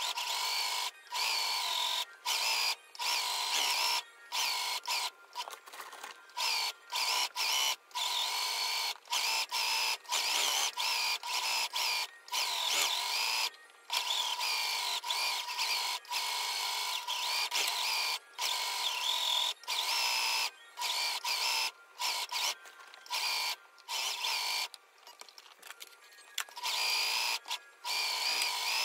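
Sewing machine stitching coiled cotton clothesline rope: the motor whines and runs in short bursts, stopping briefly many times as the rope is fed through.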